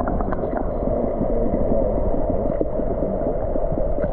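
Creek water heard through a camera held underwater: a steady, muffled rush and gurgle with the high sounds cut off, and a few faint ticks.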